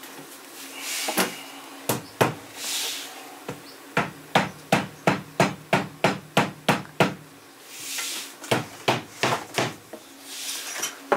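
Hammer tapping on luxury vinyl plank flooring laid over a plywood subfloor to seat the planks: a quick, even run of about a dozen taps, roughly three a second, then a shorter second run.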